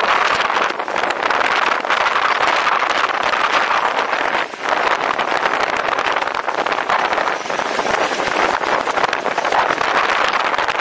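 Steady rushing noise of riding a personal electric vehicle: wind and wheel noise, with a brief dip about four and a half seconds in.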